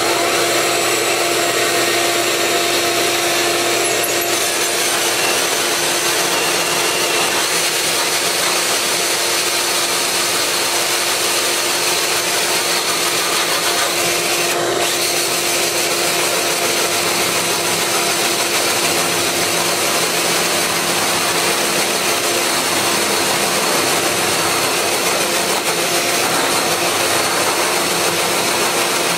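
DeWalt XRP 14V cordless drill spinning a Blue Boar hole saw that grinds steadily through fiber-cement Hardie siding and OSB, with a vacuum drawing dust off through the hole saw shield's hose. The cutting goes on unbroken at a steady level with a constant hum.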